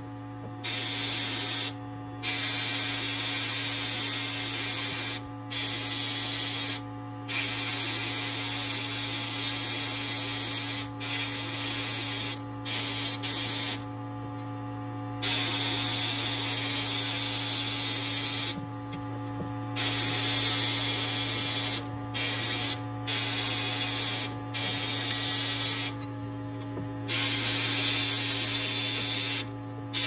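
Hand-held abrasive blast gun hissing in bursts of about one to four seconds inside a blast cabinet, cut off and restarted about a dozen times while it strips a die-cast toy tractor part. A steady low hum runs underneath.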